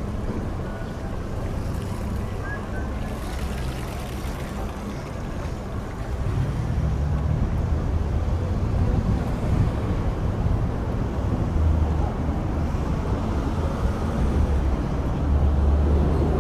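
Steady outdoor street noise: a low traffic rumble that swells louder about six seconds in, with wind buffeting the microphone.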